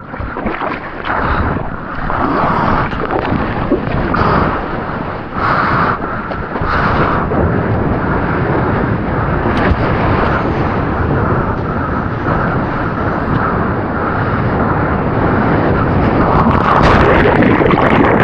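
Loud, rushing roar of breaking surf and churning whitewater close by, with wind buffeting the microphone; it swells in waves and is loudest near the end.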